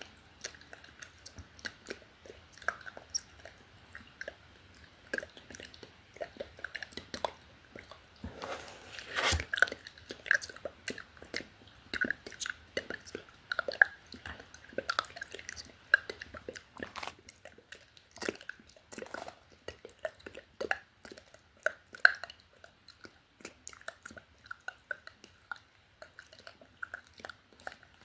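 Close-miked ASMR mouth sounds: a quick, irregular string of wet clicks and smacks, with a louder breathy burst about nine seconds in.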